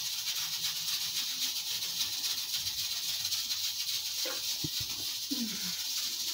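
Steady high hiss, with a couple of soft low knocks about two-thirds of the way in as the recording phone is handled.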